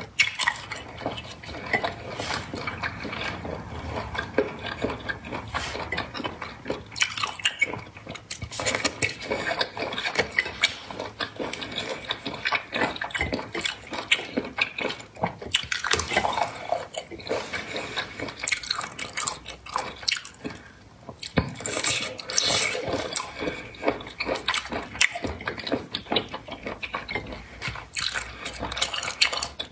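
Close-miked wet eating sounds: chewing and slurping raw seafood dressed in chilli sauce, with dense, irregular sticky clicks and squelches. Now and then there is the soft scrape of food being dipped and stirred in a small ceramic sauce bowl.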